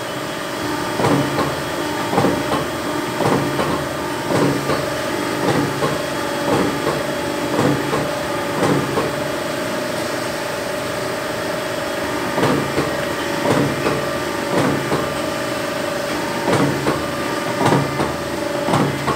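Small hydraulic press with a jeweller's chain-stamping die cycling about once a second, each stroke a quick double knock, over the steady hum of its hydraulic pump motor. The strokes stop for a few seconds in the middle, then resume.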